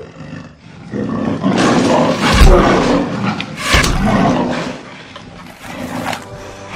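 A film monster's roar, loud and rough, with two heavy thuds about two and a half and four seconds in as the creature is stabbed.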